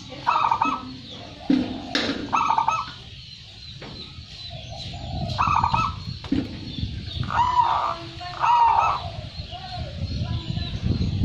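Zebra dove (perkutut) cooing: short, rolling coo phrases repeated every one to two seconds, the bird singing freely ('gacor').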